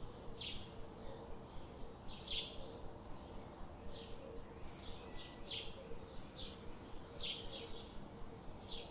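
Songbirds chirping: short, sharp downward-sweeping chirps, several close together around the middle and near the end, over a steady background hiss with a faint steady hum.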